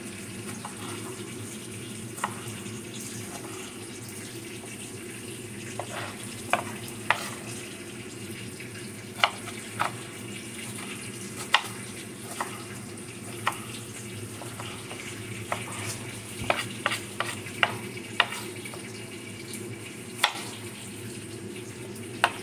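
Chef's knife dicing tomatoes on a wooden cutting board: irregular sharp knocks of the blade hitting the board, more than a dozen, with a quick run of them about two thirds of the way through, over a steady low background hum.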